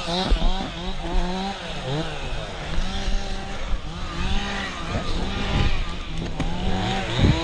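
Two-stroke chainsaw running, its pitch repeatedly rising and falling as the throttle is opened and eased off.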